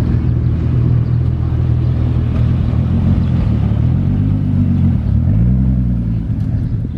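Exhaust of a widebody Toyota MR2 Spyder pulling away at low speed with a steady low drone, then revving up about four seconds in, dropping briefly at a gear change, and revving up again as it drives past.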